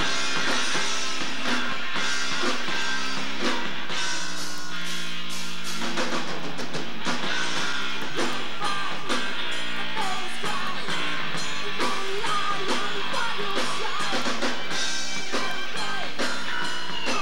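Live rock band playing, with electric guitar over a drum kit.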